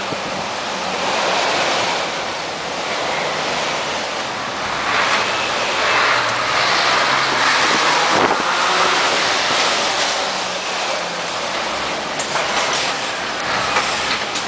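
Cab interior of a Mercedes-Benz Actros 1848 truck on the move: its V6 diesel engine running low under a steady hiss of road and wind noise, with a single knock about halfway through.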